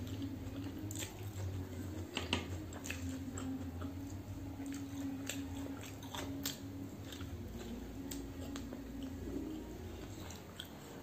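Close-miked chewing and wet mouth sounds of a person eating Maggi instant noodles and boiled egg: irregular smacks and clicks, the sharpest about two seconds in, over a steady low hum.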